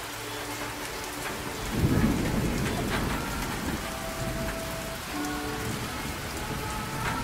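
Steady rain-like hiss with a heavy low rumble that surges about two seconds in and then fades back, over faint held tones.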